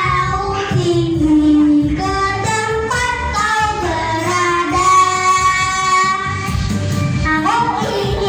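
A child singing karaoke into a microphone, with held, gliding notes over a backing track played through an amplifier and loudspeakers.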